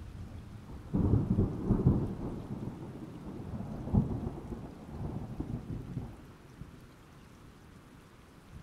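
Thunder rolling over steady rain. A rumble starts suddenly about a second in, with a sharp crack near four seconds, and dies away by about six seconds, leaving only the rain.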